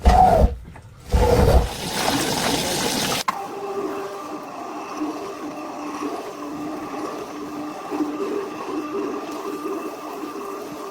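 Water rushing and splashing in two loud surges, then a steady hissing rush that cuts off abruptly about three seconds in. After that a fainter steady hum with a slightly wavering tone.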